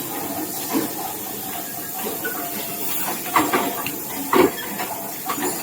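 Factory-floor machinery noise: a steady hiss from the workshop, broken by a few short metallic clanks about three and a half and four and a half seconds in.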